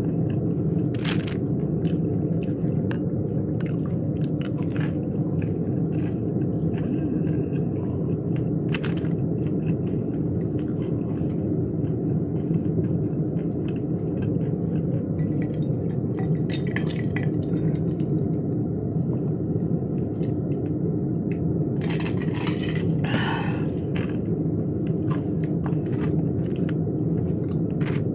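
Close-up eating sounds: chewing and biting with scattered sharp clicks, crunches and scrapes, and a denser crackly stretch near the end, over a steady low rumble of background noise.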